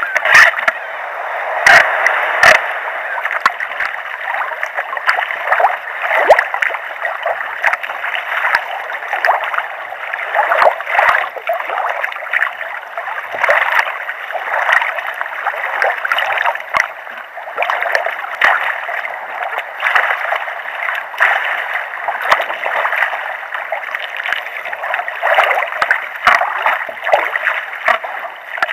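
Double-bladed paddle strokes splashing into the sea, with water sloshing and rushing along a sea kayak's hull, a surge of splashing roughly once a second.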